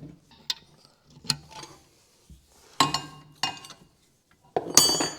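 Metal hand tools clinking and clattering as they are rummaged through and picked up, in scattered knocks with a louder ringing metallic clatter near the end.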